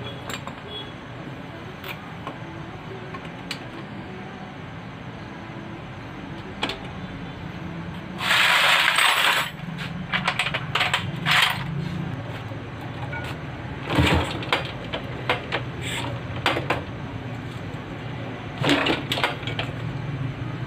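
Metal hand tools and small engine parts clinking and knocking during work on a motorcycle engine, over a steady low hum. About eight seconds in there is a loud, noisy rush that lasts over a second.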